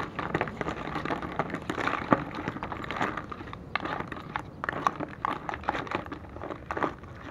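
Freshwater snail shells clattering against each other and a plastic basin as a spoon stirs them, a quick, irregular run of clicks and knocks.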